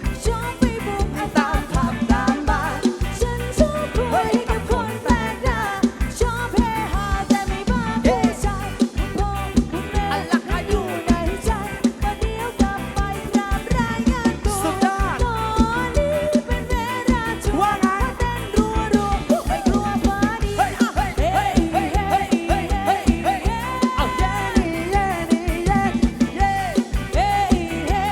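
Thai rot hae sound-truck band playing live: a singer's melody over a fast, steady, heavy drum beat.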